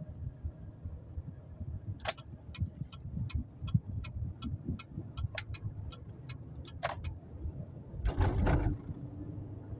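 Low engine and road rumble inside a moving car's cabin, with a turn-signal indicator ticking about three times a second from about two seconds in until past seven seconds. A louder rush of noise comes near the end.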